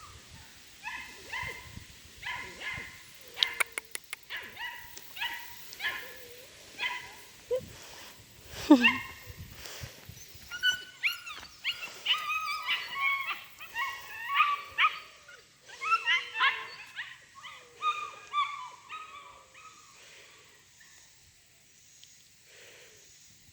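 Bernedoodle puppy giving many short, high-pitched yips and whines in quick succession, busiest in the second half, then tailing off near the end.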